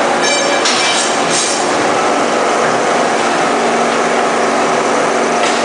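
Lead cathode casting machine running: steady industrial machinery noise with a constant hum, a brief high squeal just after the start, and short noisy bursts about a second in and again near the end.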